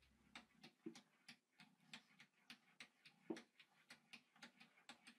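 A cat's paws tapping and batting against a mirror: a quick, uneven run of faint light taps, about three or four a second, with a couple of heavier knocks among them.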